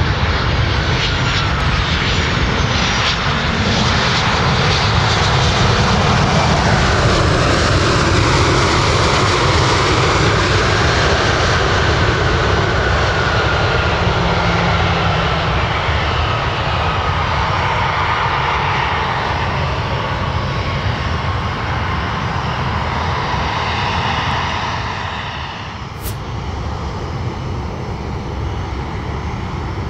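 Boeing 737-800's CFM56-7B jet engines on a landing rollout: the roar swells a few seconds after touchdown, then a slowly falling whine as the engines spool down. Near the end the sound cuts suddenly to another airliner's engines running more quietly on the ground.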